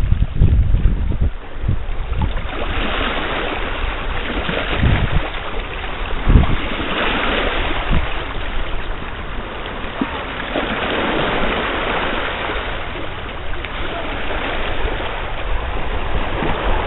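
Gusty wind buffeting the microphone, with a low thump now and then, over a steady wash of small lake waves lapping at the shore.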